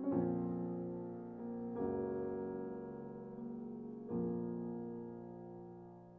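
Background music: soft piano chords, struck about every two seconds and left to fade.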